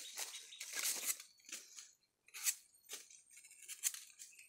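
Dry bamboo shoot sheaths tearing and crackling in about half a dozen short strokes as a young bamboo shoot is stripped by hand, with rustling of dry bamboo leaves.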